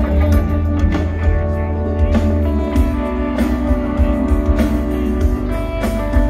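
Live rock band playing: electric guitars over bass and drums, with regular drum strokes through the music.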